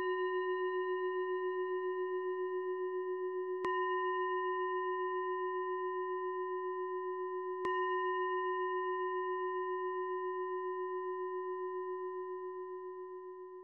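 Singing bowl struck three times about four seconds apart, each strike ringing on with a slight pulsing wobble and the sound fading away near the end; a closing bell ending the meditation.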